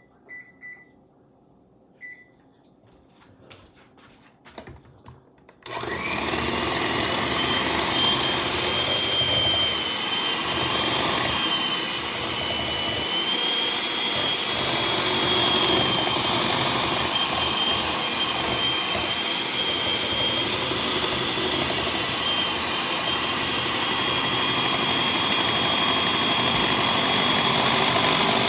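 Electric hand mixer switched on about six seconds in, then running steadily with a high whine as its beaters churn thick cake batter in a glass bowl. A few faint beeps and clicks come before it starts.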